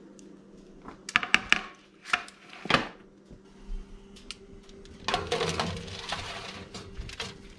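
Metal clatter from baking trays and oven racks being handled: a quick run of sharp clanks about a second in and another near three seconds, then a longer scraping rattle about five seconds in as the oven rack is pulled out. A faint steady hum runs underneath.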